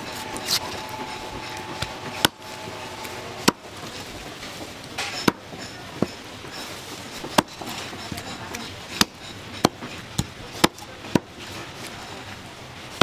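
Cleaver chopping chicken on a wooden cutting board: sharp single strokes at uneven intervals of about a second, over a steady background hiss.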